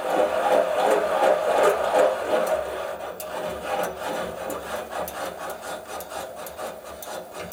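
Sunnen VGS-20 valve seat cutter scraping a valve seat in a Harley-Davidson panhead cylinder head, pulsing about three times a second. It fades away after two or three seconds as the cut finishes, leaving a few light clicks.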